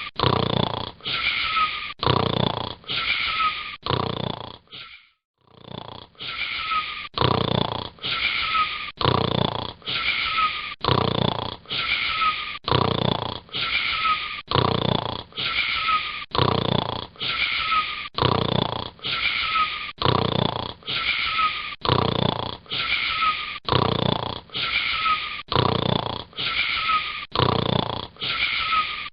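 A boy snoring in a fast, very regular rhythm of about one breath a second, each breath carrying a short, falling, whistling note. The snoring breaks off for about a second, roughly five seconds in, then resumes.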